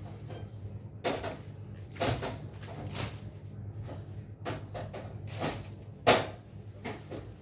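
Bunches of leafy vegetables and green onions being handled and put down on a counter: leafy rustling with several dull knocks, the loudest about six seconds in.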